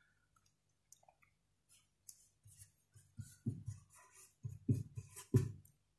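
Quiet, scattered short clicks and scrapes, several a second in the second half, over a faint steady hum.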